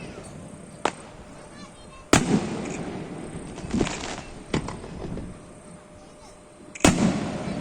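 Aerial fireworks exploding: two loud booms, one about two seconds in and one near the end, each followed by a long rumbling echo, with smaller pops and a crackle between them.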